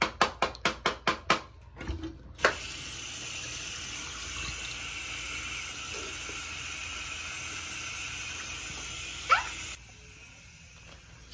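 Bathroom sink faucet running steadily for several seconds. It starts abruptly about two seconds in and stops suddenly shortly after a brief rising squeak near the end. At the start there is a quick run of about seven sharp taps, some five a second.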